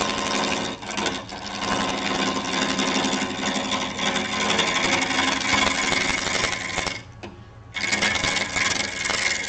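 Bowl gouge cutting a wet natural-edge bowl blank spinning on a wood lathe at about 700 RPM: a fast, chattering cut as the uneven blank bounces against the tool, over the lathe's steady hum. The cutting eases off for under a second about seven seconds in, then resumes.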